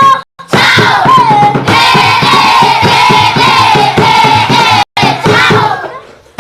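A group of children singing together in unison, with rhythmic hand-clapping keeping the beat.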